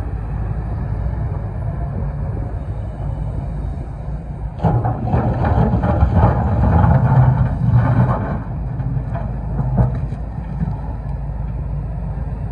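Kobelco hydraulic excavator's diesel engine running steadily, with a stretch of scraping and clattering about halfway through as its steel bucket digs into a pile of broken asphalt slabs, and a few knocks after.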